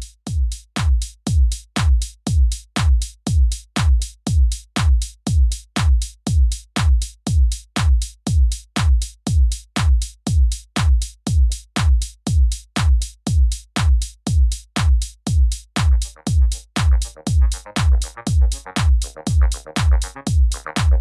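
Electronic background music: a steady, loud kick drum at about two beats a second, with a layer of synth chords joining about two-thirds of the way through.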